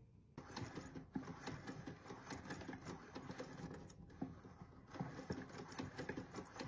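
Plastic levers and linkage of an opened gas meter's mechanism clicking and rattling as they are worked by hand, in quick irregular clicks, with a pause of about a second about four seconds in.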